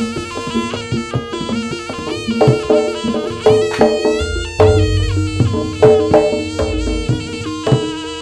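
Live jaranan ensemble music: a reedy, wavering wind melody, like the slompret shawm, over repeated hand-drum strokes and steady ringing gong-chime tones.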